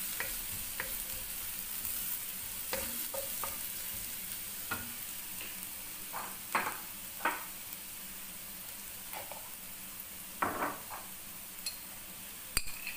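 Finely chopped onion sizzling steadily in oil in a nonstick wok, stirred with a wooden spatula: short scrapes and taps of the spatula against the pan now and then, and a sharp click near the end.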